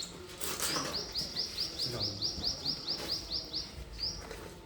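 A small bird calling a rapid, even series of short high chirps, about five a second, breaking off near the end and starting again.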